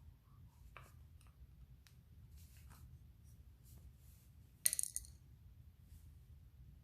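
Faint clicks of tool handling, then about two-thirds of the way in one brief, bright metallic clink of a small metal object dropped or set down.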